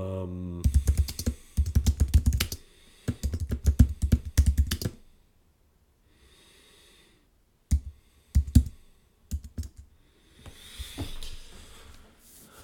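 Typing on a computer keyboard: two quick runs of keystrokes, a pause of a couple of seconds, then a few scattered keystrokes.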